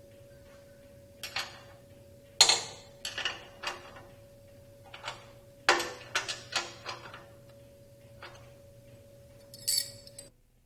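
Irregular metallic clicks and clinks of a wrench on the mounting bolts of a helicopter's secondary drive pulley as it is adjusted, over a faint steady hum that cuts off near the end.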